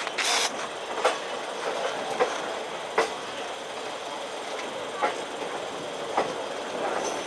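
Mangala Lakshadweep Express passenger coaches rolling past over the station's track and points as the train arrives, a steady rumble broken by wheel clacks at uneven intervals, about one a second.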